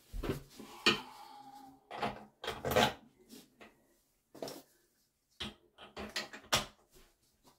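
Plastic toilet seat and its hinge hardware knocking and clicking as the seat is pressed into place on its mounting bolts: a string of irregular sharp knocks, a few with a brief ringing tail.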